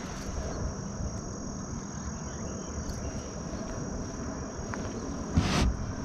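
A steady, high-pitched insect trill, like crickets, goes on without a break over a low outdoor rumble. A brief rush of noise comes about five and a half seconds in.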